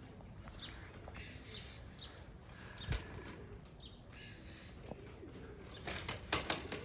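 Birds chirping in short, high, falling notes about once a second, with pigeons cooing low underneath; a brief clatter near the end.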